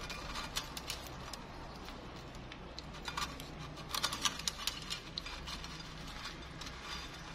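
Chopsticks working through a crispy fried-taro and seafood salad and piling it onto a prawn cracker: scattered crisp crackles and clicks, densest about three to four and a half seconds in.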